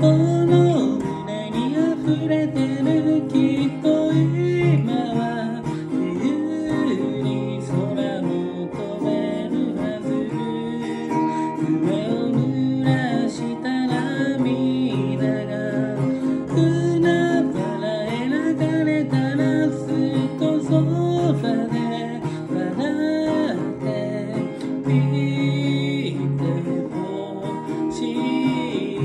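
Acoustic guitar strummed as accompaniment to a singing voice: a song sung to the guitar.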